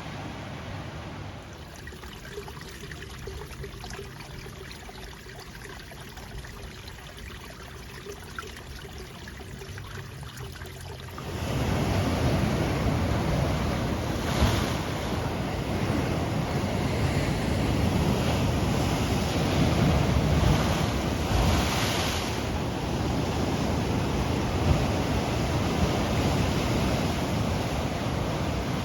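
Ocean surf with wind. A fairly quiet steady rush gives way suddenly, about eleven seconds in, to much louder waves washing and breaking, with a couple of stronger surges.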